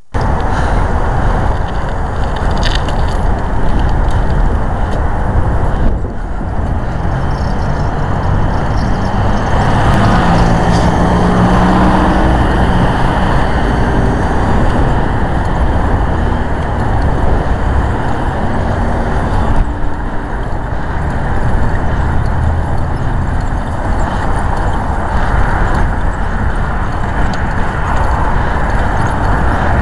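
Steady, loud noise of a motor vehicle on the move: engine and road noise that carries on without a break.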